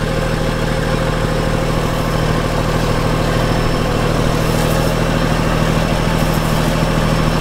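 Diesel engine of an old excavator running steadily at a constant speed.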